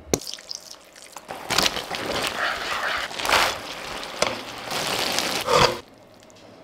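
A brief squirt from a squeeze bottle of red sauce. Then a wooden spoon stirs a thick, saucy stir-fry in a non-stick pan, sizzling and scraping in uneven strokes, with the loudest scrape near the end as the food is spooned out onto a plate.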